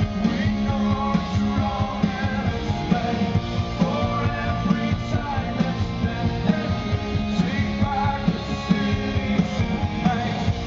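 Live rock band playing with steady, driving drums and guitars.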